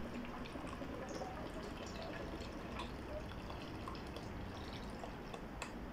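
Milk and cream poured from a carton and a can into a pot of cooked broccoli, a faint trickle with small drips and splashes, and one light knock near the end.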